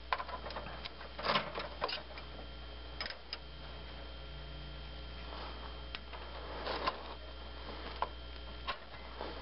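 Steel wrenches clicking and scraping against a brake line flare-nut fitting as it is tightened, in scattered small clicks over a steady low hum.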